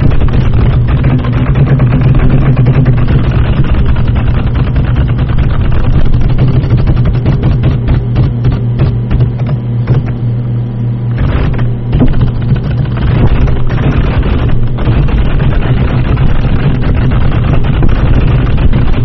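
Fast, continuous clattering of a computer keyboard typed on hard, dense rapid key clicks over a steady low hum, easing off briefly about ten seconds in before picking up again.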